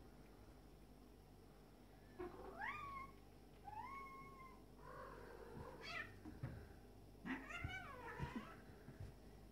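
Two male cats yowling at each other in a fight standoff: four drawn-out calls that rise and fall in pitch, starting about two seconds in. A few soft thumps come near the end as they grapple.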